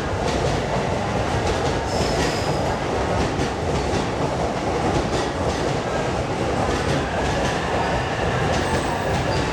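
E531-series commuter electric train rolling slowly in to stop, a steady rumble of wheels on rail with scattered light clicks from the wheels over the track. A faint, brief squeal about two seconds in.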